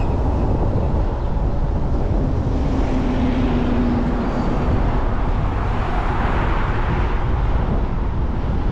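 Steady road and wind noise of a car driving, mostly a low rumble, with a swell of brighter hiss about six seconds in.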